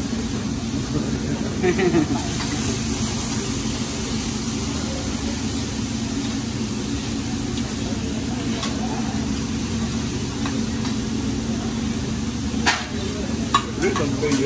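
Chicken breasts sizzling on a hibachi steel griddle over a steady low hum. The chef's metal spatula clicks and scrapes against the steel once around the middle and a few times near the end.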